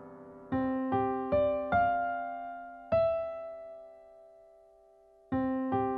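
Background piano music: a slow phrase of single notes, four climbing notes followed by one note that rings out, with the phrase starting again near the end.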